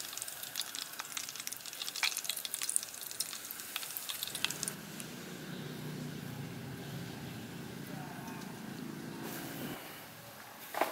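Freshly fried slab of bacon crackling and sizzling with fine pops as it rests on a wooden board. After a few seconds the crackling fades under a low, steady hum, and a single knock comes near the end.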